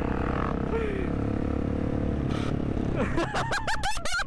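Supermoto motorcycle engine running under way, mixed with steady wind rush on a helmet-mounted microphone. Near the end comes a short burst of quickly rising and falling pitched sounds.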